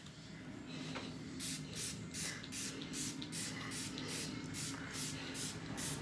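Trigger spray bottle misting water onto hair, pumped rapidly in a steady run of short hissing squirts, about three to four a second, starting about a second and a half in.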